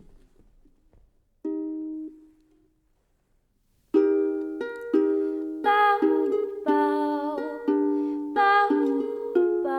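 A strummed acoustic string instrument. One chord sounds about a second and a half in and rings out, then after a short pause steady strumming of a song's opening chords begins.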